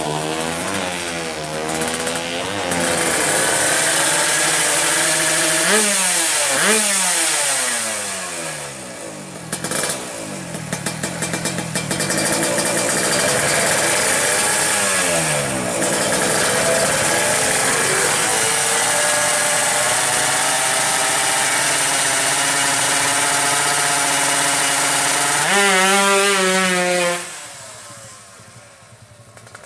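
Suzuki Satria 125cc two-stroke engine, race-tuned with a trimmed-down magneto and a YY Pang racing exhaust, revved in quick blips that crackle about ten seconds in. It is then held at high revs for a long stretch. Near the end it revs up sharply and the sound drops away as the bike rides off.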